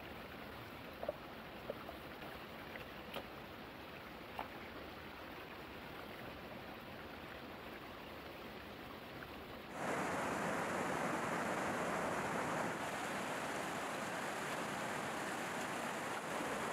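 Water of a shallow stream running over stones, with a few light knocks of rocks being set in the streambed in the first few seconds. About ten seconds in the water sound suddenly becomes louder and fuller.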